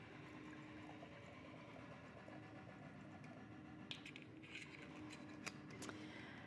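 Near silence: faint room hum, with a few faint clicks and taps in the second half as a glass wine bottle is handled and closed.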